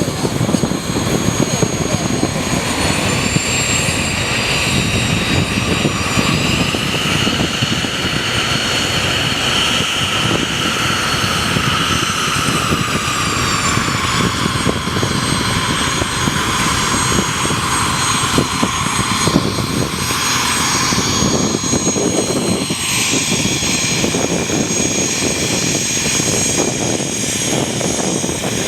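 Mooney M20E's four-cylinder piston engine and propeller running steadily and loudly, with a faint higher whine that rises over the first few seconds and slowly falls again after about twelve seconds.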